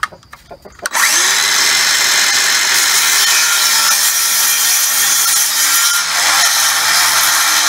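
DeWalt circular saw starting up about a second in with a brief rising whine, then running steadily as it cuts through the end of a wooden roost bar to trim off its sharp corners.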